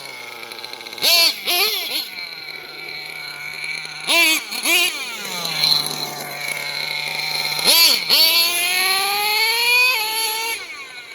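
RC truck's motor revved in several short bursts, its whine rising and falling each time, then spinning up into a long, steadily climbing high-rpm whine near the end. The motor is revving freely because the drive is slipping, which the owner traced to the reverse gearbox having slipped out of gear.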